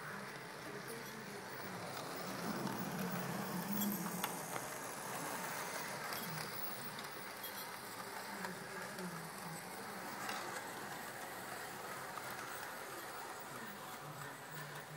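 OO gauge model train running along the track: a steady hum from its small electric motor and the rumble of its wheels on the rails, with a few faint clicks.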